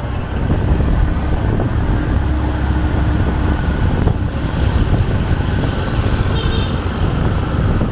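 Steady low rumble of a vehicle moving along a city street, mixed with the sound of surrounding road traffic.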